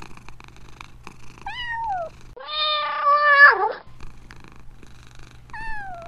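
Domestic cat purring steadily, broken by meows. A short falling meow comes about a second and a half in, then a long, louder meow that drops in pitch at its end, and another short falling meow near the end; the purring pauses during the long meow.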